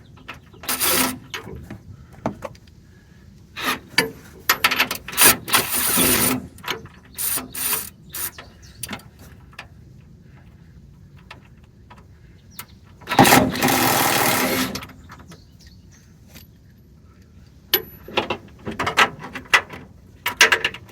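Hand ratchet wrench clicking in several short spells, with a longer run of ratcheting about 13 seconds in, as nuts on the steering linkage are worked loose.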